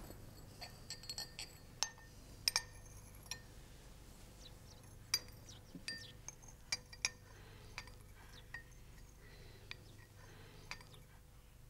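Light clinks of a porcelain lidded cup, the lid and bowl tapping together as it is handled and sipped from. The clinks come singly and scattered, a cluster in the first few seconds and more between about five and seven seconds in.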